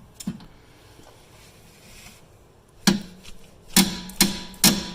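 Sharp metal-on-metal knocks as a ratchet and 17 mm socket are fitted onto the lower brake caliper bracket bolt. There is one knock about three seconds in, then four more in quick succession near the end, each ringing briefly.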